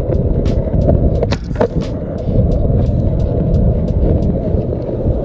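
Skateboard rolling over concrete: a steady low, rough rumble from the wheels, with scattered sharp clicks and ticks from bumps and cracks in the surface.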